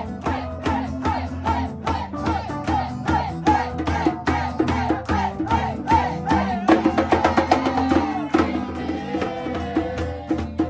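Live band music with a steady percussive beat.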